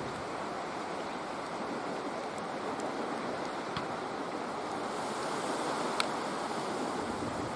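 Steady outdoor wind noise on the microphone, with a few faint ticks.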